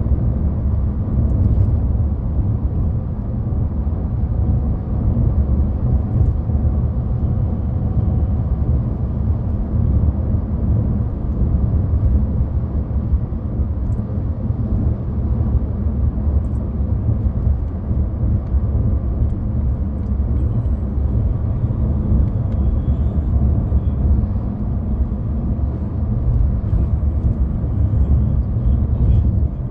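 Steady low rumble of a car driving at road speed, heard from inside the cabin: engine and tyre noise on the asphalt.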